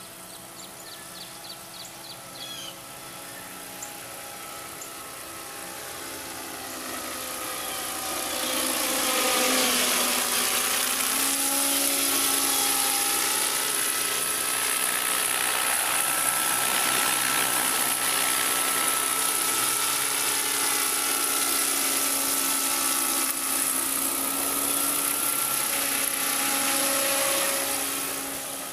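Small electric RC helicopter in a Hughes 500 scale fuselage flying close: the whine of its direct-drive motor and fixed-pitch rotor. It grows louder about eight seconds in, dips in pitch and comes back up around ten seconds, holds steady, and fades near the end.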